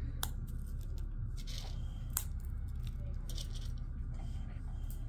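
A few light, sharp clicks from dry kibble and cats foraging for it on a hard floor, scattered over a steady low room hum.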